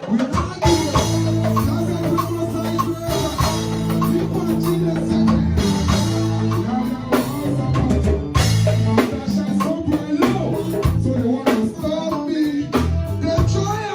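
Live band playing a dancehall riddim: drum kit with rimshots over a held bass line.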